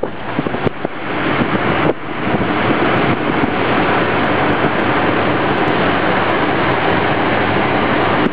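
Steady rush of wind and road noise from a car driving along, with wind buffeting the microphone, a little uneven in the first two seconds.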